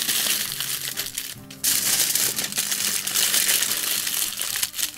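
Aluminium foil crinkling and crackling as it is folded and pressed tight around a rack of ribs to seal the pouch, with a short break about a second and a half in. Background music plays underneath.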